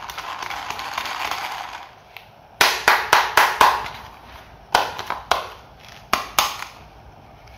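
Plastic toy helicopter handled in cloth-gloved hands. A rustling rub lasts about two seconds, then comes a quick series of sharp plastic clicks and knocks as the toy is turned over.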